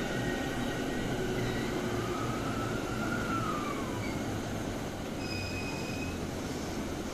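E217-series electric commuter train pulling slowly into a station platform and braking, with a steady low rumble. A whine rises and then falls about two to four seconds in, and a brief high squeal comes about five seconds in.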